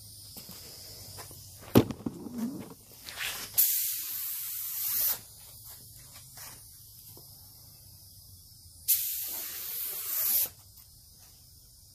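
Compressed-air gravity-feed paint spray gun hissing in two bursts of about a second and a half each, several seconds apart, as paint is sprayed. A sharp knock, the loudest thing, comes about two seconds in.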